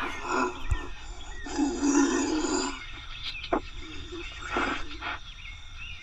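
Trail-camera recording played back through laptop speakers: an animal's rough calls in several bursts, the longest starting about a second and a half in and lasting over a second. The animal looks like a deer on the footage, but the owner says it definitely does not sound like a deer.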